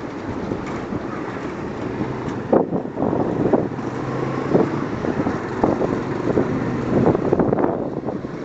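Riding on a motorcycle taxi in slow city traffic: wind rushes across the microphone in irregular gusts over road and engine noise. A low, steady engine hum comes in for a few seconds in the middle.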